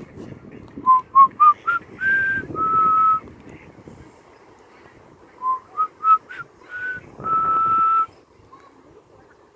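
A person whistling two short phrases, each a quick run of notes climbing in pitch that ends in a long held note.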